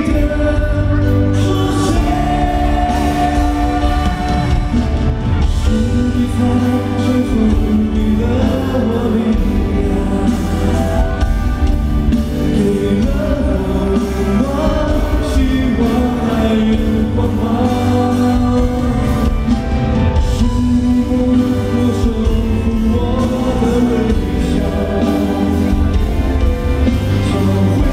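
Live pop concert: a male singer sings into a handheld microphone over a full band, heard loud through the arena's sound system.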